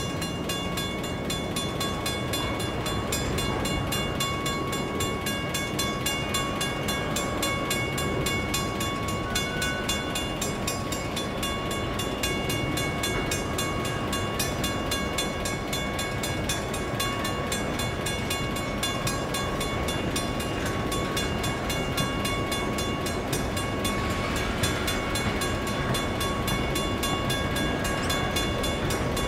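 Freight train of container wagons rolling steadily past, with the level crossing's warning bell ringing continuously in evenly repeated strikes over the train noise.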